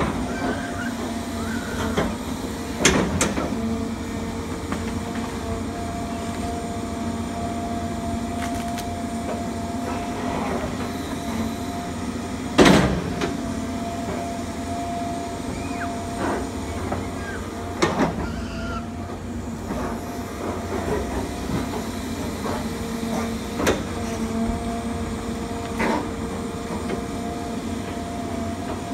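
John Deere excavator's diesel engine running steadily with a droning hum as the machine digs at the base of a tree. About five sharp knocks ring out over it; the loudest comes about twelve seconds in.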